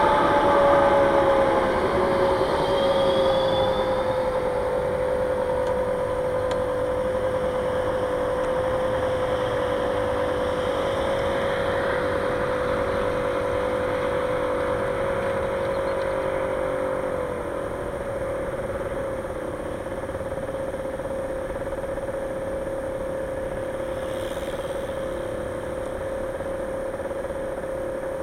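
Motor vehicle engine slowing down, its pitch falling over the first few seconds, then idling with a steady whine while stopped.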